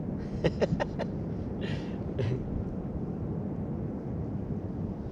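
Steady wind and sea rumble on the microphone. About half a second in comes a quick run of four sharp clicks, and around two seconds in two short hissing scrapes, as a small hooked fish is handled and unhooked with pliers.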